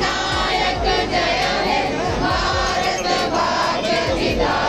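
A large crowd of voices chanting and cheering together, with repeated low thumps underneath.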